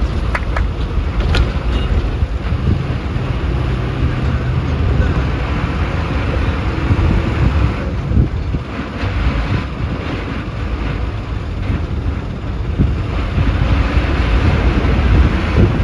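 Inside a moving passenger bus: steady engine drone and road noise, with wind buffeting the microphone and a few light rattles near the start.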